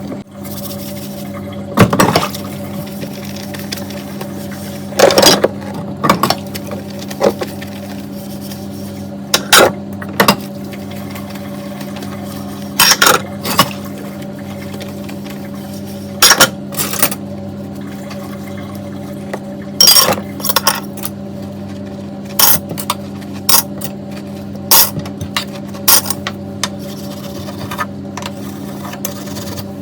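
Dishes and cutlery clinking and knocking together as they are washed by hand, in sharp strikes every second or two, some in quick clusters. A steady low hum runs beneath.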